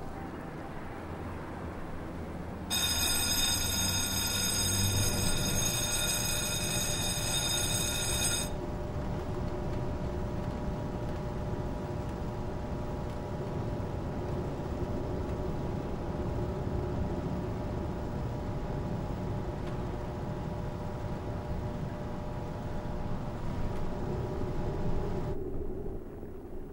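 Steady machinery hum with several sustained tones over a low rumble. A shrill high whine of many tones joins it from about three seconds in and cuts off suddenly near eight seconds.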